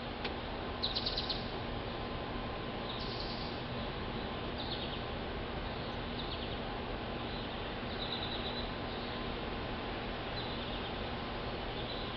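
Small birds chirping: short runs of quick, high notes every second or two, over a steady background hiss.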